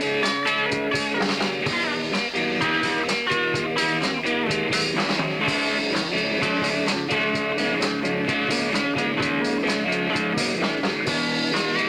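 Live rock band playing: electric guitars over a drum kit, with steady cymbal hits.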